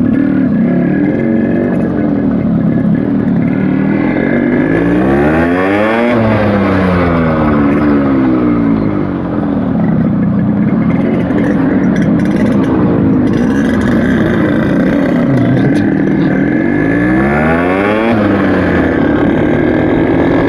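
Yamaha RX100's two-stroke single-cylinder engine running and being revved, its pitch rising to a peak and falling back twice, about six seconds in and again near the end.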